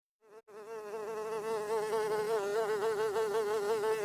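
A fly buzzing: one steady, high buzz whose pitch wavers slightly. It starts a fraction of a second in, breaks off briefly, then carries on without a break.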